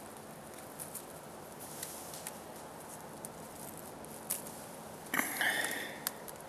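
Bramble leaves rustling and stems snapping lightly as ripe blackberries are picked by hand, with scattered small clicks and a louder rustle about five seconds in.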